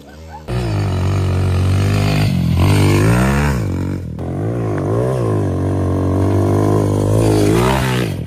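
Motorcycle engine revving hard, its pitch rising and falling again and again as the throttle opens and closes. The sound cuts in suddenly about half a second in and breaks off briefly about four seconds in.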